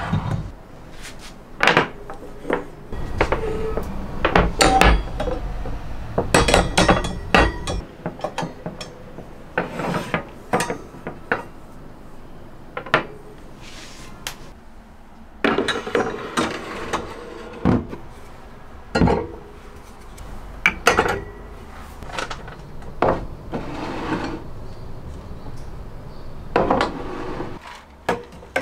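Glass storage jars and kitchen containers being handled and set down on shelves, racks and a wooden countertop: irregular clinks, taps and knocks, a few close together at a time, with pauses between.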